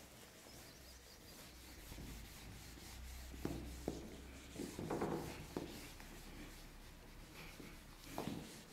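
Faint rubbing of a duster wiping a whiteboard clean, with a few sharp ticks, and a marker writing on the board near the end.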